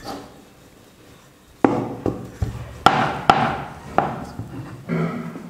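Wooden rolling pin rolling out dough on a wooden board. After a quiet first second and a half comes a run of sharp wood-on-wood knocks, each followed by a rolling rumble.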